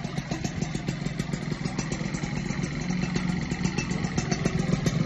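Small motorcycle engine running through an aftermarket BMS exhaust, idling with a steady pulsing note that grows a little louder near the end.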